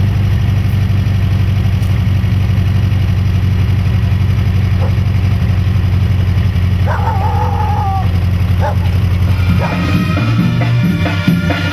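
A motor vehicle's engine running with a steady low drone, with a short pitched call partway through. Music with drums starts near the end and cuts the drone off.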